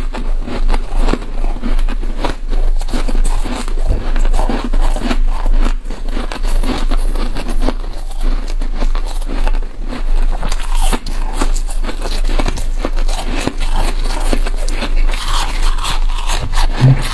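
Freezer frost being bitten and chewed close to the microphone: a dense, rapid run of crisp, crackly crunches over a steady low hum.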